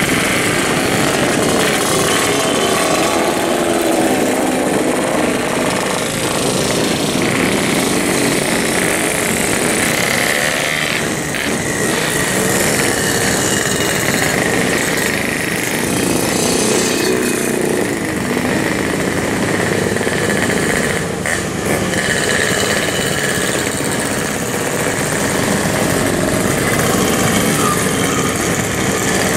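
A pack of Yamaha RX-King two-stroke single-cylinder motorcycles riding past together, their engines being revved (blayer). Many engines overlap into one loud, unbroken, rasping sound whose pitch wavers constantly.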